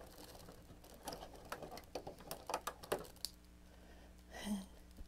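Light crinkling and clicking of a small toy's clear plastic casing and its cardboard compartment being handled as the piece is pulled out, a quick run of sharp little crackles. A brief murmur of voice near the end.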